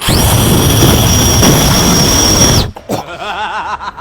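Handheld battery-powered ducted-fan blower with a brushless motor, switched on: a high whine rises almost at once and holds steady over a loud rush of air, then cuts off suddenly after about two and a half seconds.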